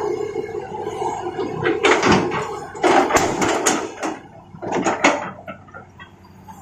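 Bursts of clattering, scraping knocks, three clusters in all, over a steady hum that fades out partway through.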